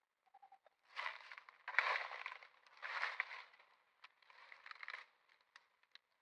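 Rustling and crackling, like crinkling material being handled or moved over, in four short bursts, followed by a few scattered clicks.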